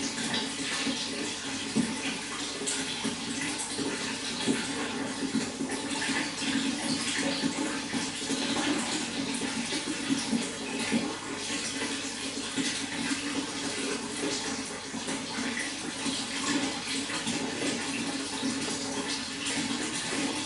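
Running water splashing and gurgling steadily and without a break.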